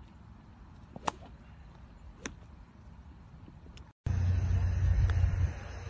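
Two sharp golf club strikes on balls at a driving range, about a second apart. Then loud wind buffeting the microphone, with a faint tick of a putter striking a ball.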